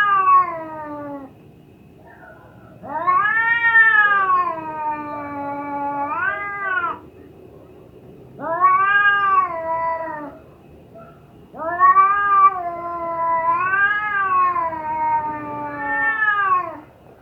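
Domestic cat in heat yowling: a string of long, drawn-out calls that rise and fall in pitch, separated by short pauses, the longest lasting about five seconds near the end.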